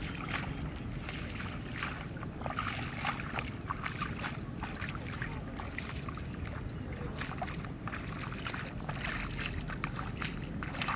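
Bare feet splashing and squelching through waterlogged grass, a few irregular wet steps a second, over a steady low wind rumble on the microphone.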